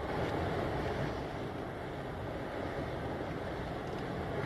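Steady wind noise buffeting the microphone, with the rush of waves on choppy water underneath; no distinct events.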